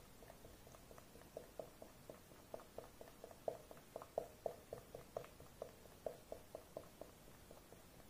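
Highlighter marker tip dabbed quickly and repeatedly onto clear slime: a run of soft, short taps, about four a second, faint at first and louder from about a second in.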